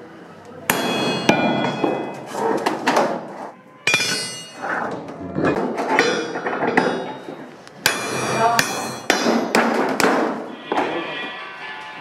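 Irregular hammer blows on a punch held against a thin sheet of metal, roughly one a second, each strike followed by a brief metallic ring from the sheet.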